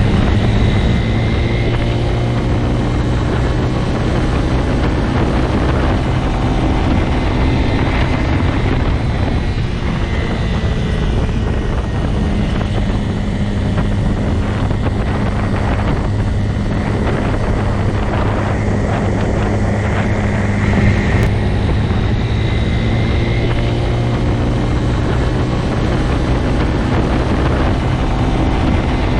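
Motorcycle engine running at a steady speed, a continuous even drone with little change in pitch.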